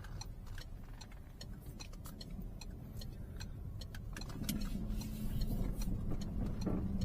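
Inside a Peugeot 308's cabin while driving: a low road rumble with frequent short knocks from the front suspension, a few a second. The knocking comes from the suspension, not the brakes, and the mechanic judges it to be a failed front lower control arm.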